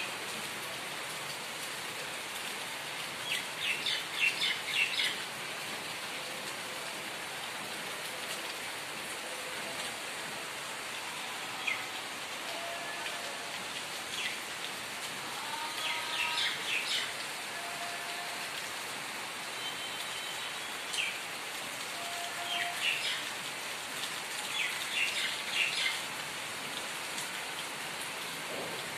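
Steady rain falling on a flat concrete rooftop and its puddles, an even hiss, with several short bursts of bird chirping over it.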